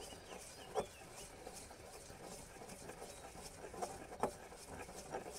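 Stone pestle grinding dry spices and dried onion in a stone mortar: quiet scraping with a few soft knocks, the clearest about a second in and again a little after four seconds.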